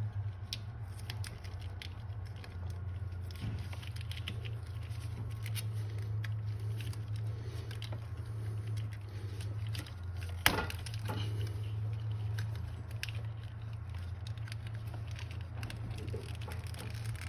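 Small scattered clicks and rustles of hands handling wiring and plastic parts, over a steady low hum, with one sharp click about ten and a half seconds in.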